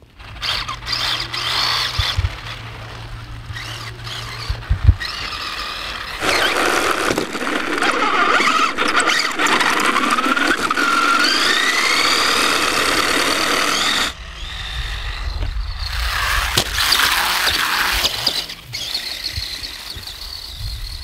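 Small electric RC race buggy's motor and gears whining, the pitch rising and falling with the throttle, over tyre noise on tarmac; loudest and closest in the middle stretch, heard from a camera on board the car. A single sharp knock comes about five seconds in.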